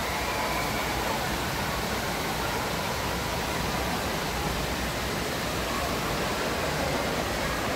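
Steady rushing of water in an indoor waterpark, the lazy river's current and water features making a constant wash of noise, with faint distant voices under it.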